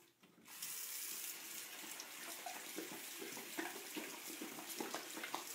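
Bathroom faucet running into a sink, starting about half a second in, with small irregular splashes as a dog laps water from the stream.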